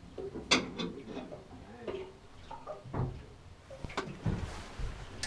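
A few sharp knocks and dull clunks, the loudest about half a second in and another near four seconds, over a low background rumble in a boat's wheelhouse.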